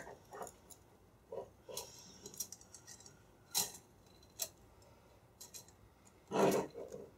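Small scattered clicks and ticks of thin gold-coloured craft wire being wrapped around a ballpoint pen and twisted into loops by hand, with a louder handling sound about six and a half seconds in.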